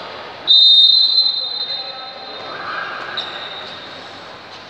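A referee's whistle blows a loud, shrill, steady blast about half a second in, dying away over the next second, then a shorter, fainter blast a little after three seconds. Coming straight after a substitution, it is the referee's signal to serve.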